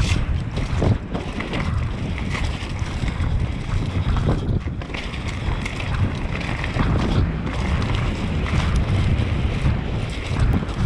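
Hardtail mountain bike rolling fast along a dirt forest trail: wind rushing over the microphone and tyre noise on dirt and leaves, with frequent knocks and rattles from the bike over bumps.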